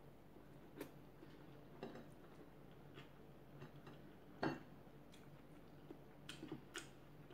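Faint eating sounds: a few soft clicks and smacks from a person eating rice with their hands, chewing and fingers touching the plate. The loudest click comes about four and a half seconds in.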